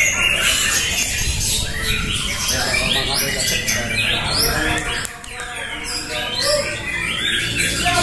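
Several white-rumped shamas singing at once, a dense jumble of quick whistled notes sweeping up and down.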